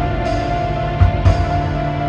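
Dark, moody background music: a held synth tone over low, deep drum hits about a second apart.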